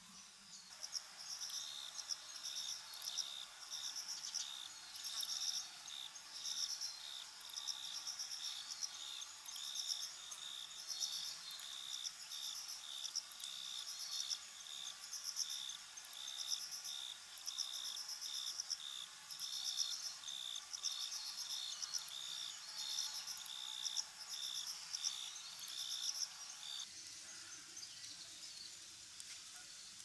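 Insects singing in high, rapid, rhythmic chirping pulses that repeat steadily, then stop a few seconds before the end.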